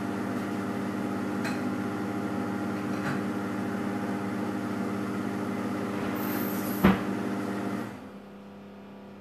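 Heating kitchen robot running with a steady motor hum as it heats and stirs a preparation towards the boil, with a sharp click about seven seconds in. The hum drops away about a second before the end.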